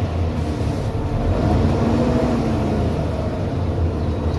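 Scania OmniDekka double-decker bus on the move, heard from inside on the upper deck: a steady low engine drone mixed with road and body noise, the engine note shifting slightly up and down.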